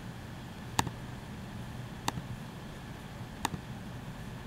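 Three sharp clicks of a computer pointer, a little over a second apart, over a faint steady low hum.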